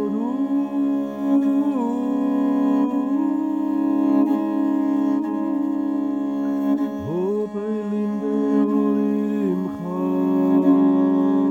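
Tuvan music built on a continuous drone, with long held notes rich in overtones and a few slow slides in pitch.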